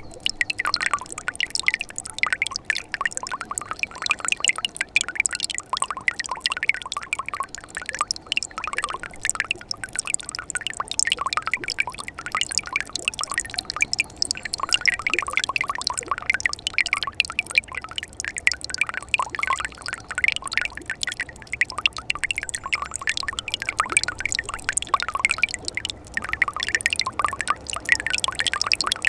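Winter mountain stream flowing, a steady mix of splashing and trickling water.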